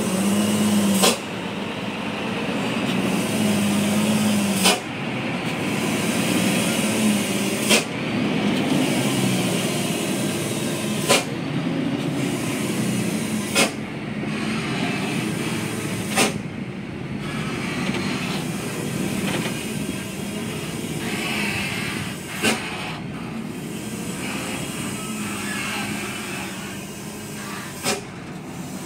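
Diesel engine of a heavily loaded truck running steadily as it creeps along a narrow sunken dirt track, with about eight brief sharp sounds spaced a few seconds apart.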